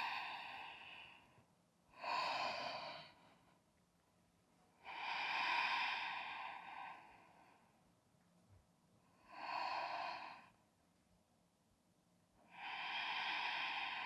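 A woman breathing slowly and deeply, each breath clearly heard. One breath trails off at the start, then four more follow, each about one to two and a half seconds long, with quiet gaps between them.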